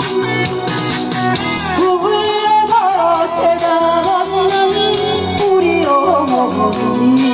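A woman singing a slow Korean song into a microphone, her voice amplified through a PA over instrumental accompaniment with a steady beat.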